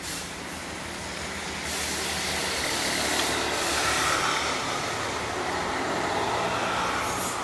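A vehicle passing: a broad rushing noise swells about two seconds in, is loudest in the middle and eases off near the end, over a low steady engine hum.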